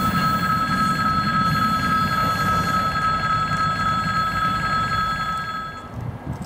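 A freight train of open wagons rumbles past while a level-crossing warning bell rings steadily over it. Both cut off abruptly about six seconds in, leaving faint wind.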